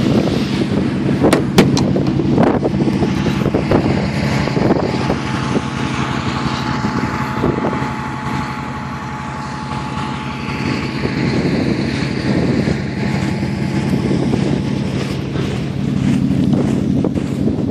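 The engine of a 1949 Bombardier snow bus runs steadily, with wind buffeting the microphone. There are a couple of sharp knocks a second or two in.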